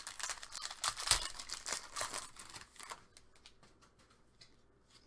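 Foil trading-card pack wrapper being torn open and crinkled, a dense crackle for about three seconds, then fainter with a few scattered light clicks as the cards are handled.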